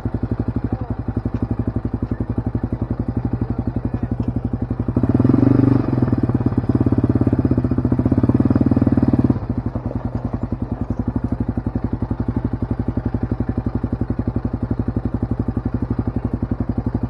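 Yamaha ATV engine idling with an even, steady pulse. It gets louder under light throttle for about four seconds, starting about five seconds in, then settles back to idle.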